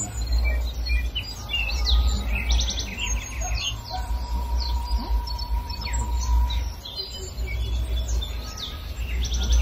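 Several songbirds chirping and twittering in quick, high, overlapping calls, over a low rumble that drops out briefly about two-thirds of the way through.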